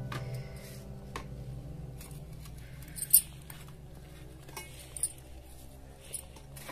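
Small clicks and taps of puja items being handled on a stainless steel plate and bowls, the sharpest click about three seconds in, over faint steady tones.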